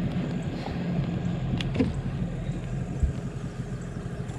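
Boat engine idling with a steady low hum. A couple of short knocks come about one and a half seconds in, and a low thump about three seconds in.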